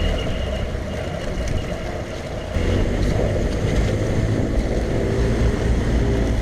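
Small motorboat's engine running steadily under way, with water and wind noise; it gets louder about two and a half seconds in.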